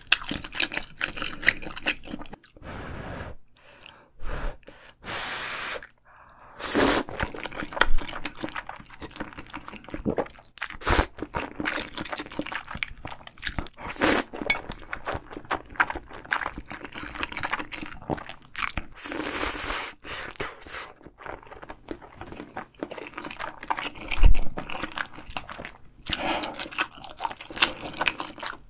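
Close-miked eating: ramen noodles and rice cakes in spicy tteokbokki sauce being slurped and chewed. Wet chewing clicks run throughout, with a few longer slurps.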